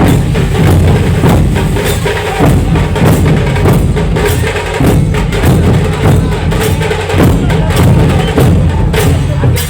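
Dhol-tasha pathak playing loud: big barrel dhol drums beating a fast, even rhythm under sharp, crackling tasha strokes.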